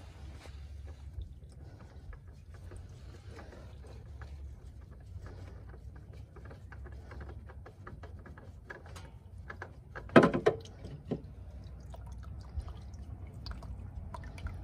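Small clicks and rubbing as a gloved hand spins a loosened oil filter off an ATV engine, with oil trickling. A loud clatter about ten seconds in, with a smaller one just after.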